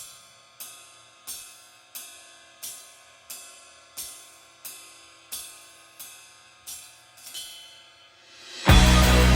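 Hammer blows on steel over an anvil, steady at about one and a half a second, each ringing out, with a quick double blow near the end. Loud rock music starts in the last second.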